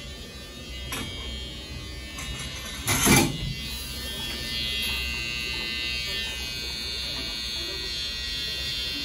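Electric beard trimmer running steadily with a buzzing whine, louder from about halfway through. A short, loud burst of noise comes about three seconds in.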